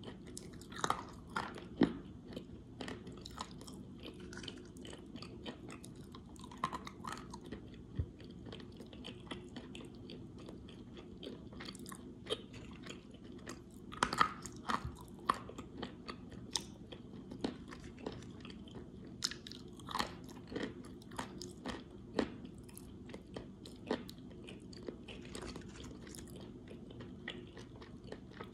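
Pieces of clay being bitten and chewed, giving irregular sharp crunches and crackles with a denser run of crunches about halfway through.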